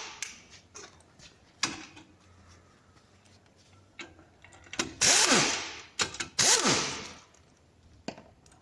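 A power wrench spinning lug nuts off a car's wheel studs. It runs in short bursts of about a second, with the motor's pitch dipping and rising in each, and there are a few sharp clacks in between.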